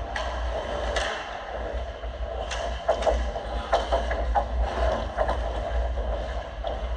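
Ice hockey skates scraping and sticks clacking on the ice in a scramble around the goal, heard as a run of short sharp scrapes and knocks over a steady low rumble.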